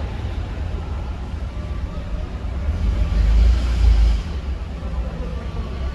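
A motor vehicle's engine running with a steady low rumble. A louder rushing swell comes about three seconds in and fades about a second later.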